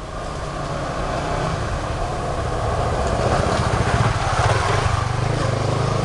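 Steady rumble of a motor vehicle engine, growing louder over the first couple of seconds and then holding.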